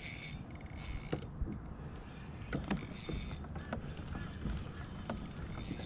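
Spinning reel being cranked against a hooked fish, its gears whirring and clicking, with four short high-pitched buzzing bursts.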